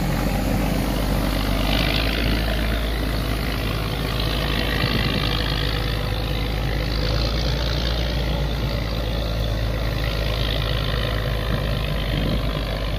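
A boat engine running steadily at a low, even pitch, with a constant noisy hiss above it.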